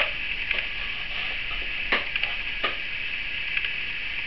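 Safety scissors snipping into a cardboard paper towel roll: a few separate sharp snips, about two seconds in and again just after, over a steady background hiss.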